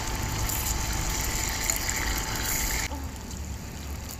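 Food sizzling in a small frying pan on a camp stove, a steady hiss that cuts off abruptly about three seconds in.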